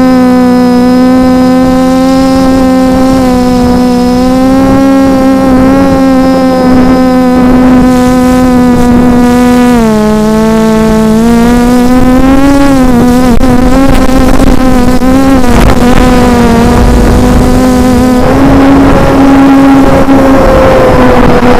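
Reptile 500 quadcopter's electric motors and propellers heard from the onboard camera, a loud steady hum. It dips in pitch about ten seconds in and wavers a couple of seconds later as the throttle changes. Near the end a rushing noise rises over the hum.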